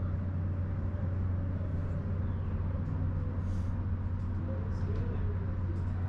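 A steady low machine hum, unchanging throughout, with faint voices murmuring in the background.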